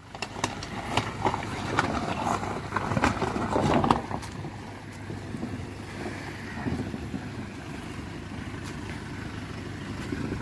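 Toyota Fortuner SUV driving off a rocky bank into a shallow river: tyres crunching and knocking over loose stones for the first four seconds or so, then a steadier wash of water around the wheels as it wades, with the vehicle's engine running underneath.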